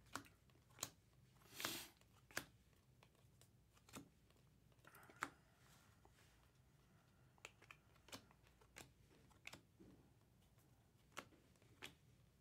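Faint handling of Topps Chrome trading cards as they are flipped through: a dozen or so irregular light clicks and snaps, with one short swish of a card sliding about a second and a half in.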